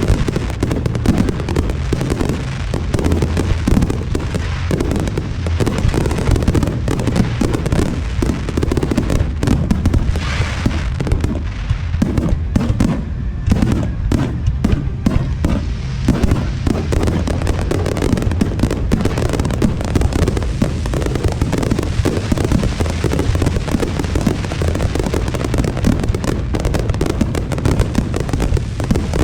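Non-stop barrage of aerial firework bursts, booms following each other so closely that they run together into a steady rumble. About ten seconds in, a brief higher hissing crackle rises over the booms.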